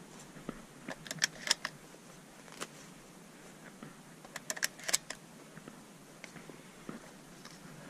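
Footsteps on loose stones of a rocky hillside: scattered crunches and clinks, thickest about a second in and again around four to five seconds in.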